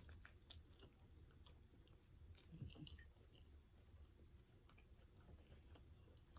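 Faint chewing of a pancake burger, with soft mouth clicks and smacks.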